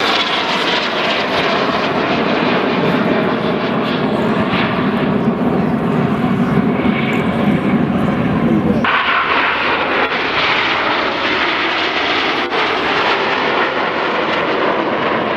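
Jet noise from the Red Arrows' BAE Hawk T1 jets flying a formation display overhead, a continuous loud rush. About nine seconds in the sound changes abruptly to a thinner, higher-pitched rush.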